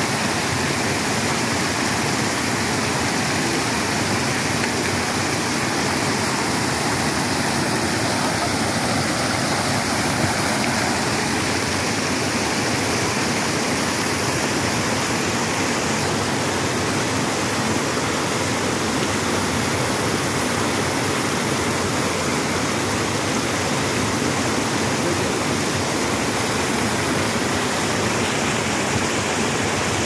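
Small waterfall: shallow stream water pouring over a rock ledge in a steady, unbroken rush.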